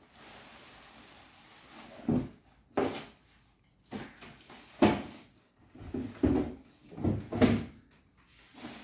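Cardboard packaging being handled as a foam-packed sandwich toaster is pulled out of its box and set down on a table: a string of knocks, thumps and short scrapes, about half a dozen.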